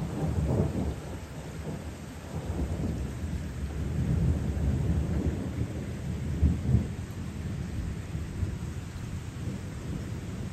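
Thunder rolling in a long, low rumble that starts suddenly and swells and ebbs in waves, over steady rain.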